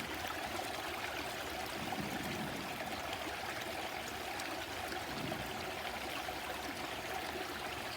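Steady rush and trickle of a small stream flowing over rocks.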